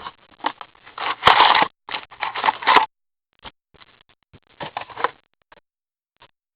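Hockey card packaging being torn open and handled: a run of crinkling, rustling and scraping, dense for the first three seconds and then more scattered.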